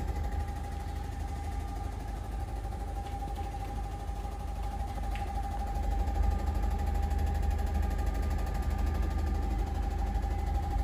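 COM.TEC apheresis machine (blood cell separator) running during a donation, its pumps giving a steady low hum with a constant mid-pitched tone over it.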